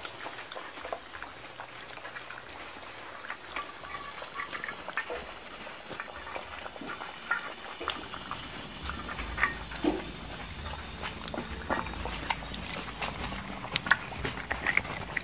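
A litter of dachshund puppies eating together from a metal bowl: wet lapping, chewing and smacking, heard as a steady run of small irregular clicks.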